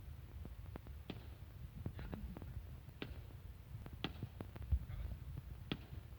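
Fireworks going off in the distance: sharp single pops and cracks at irregular intervals over a steady low rumble.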